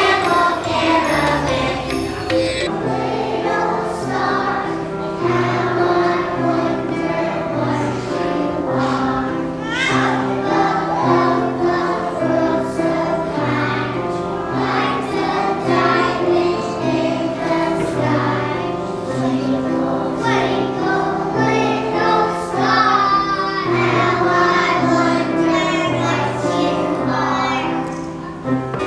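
A group of young children singing a song together over an instrumental accompaniment with a steady, stepping bass line.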